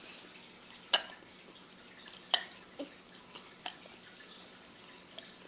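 A few short, sharp clicks and gulps from a girl's mouth and throat, about five spread over the few seconds, as she swallows air between burps.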